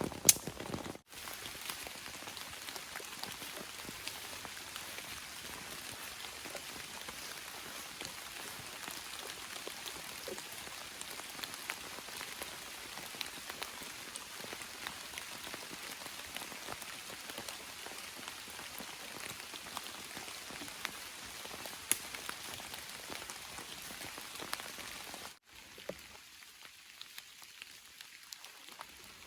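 Steady rain, with many separate drops striking close by. After a sudden cut near the end the rain continues quieter and thinner.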